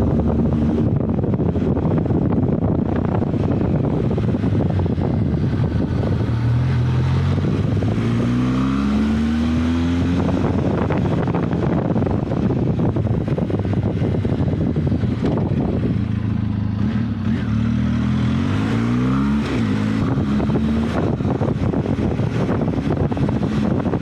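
Benelli TRK 502 X's parallel-twin engine running under way, its pitch climbing twice as the bike accelerates, about a third of the way in and again past the middle, over steady wind rush on the microphone.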